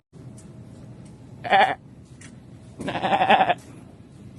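Two goat bleats: a short one about a second and a half in, then a longer wavering one about three seconds in.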